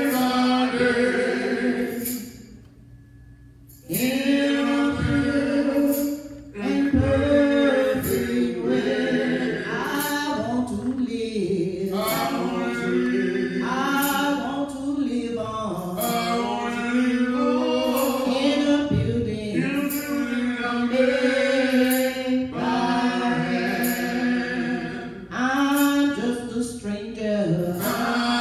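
A small gospel vocal group of men and a woman singing a cappella into microphones, with a short break in the singing about two seconds in.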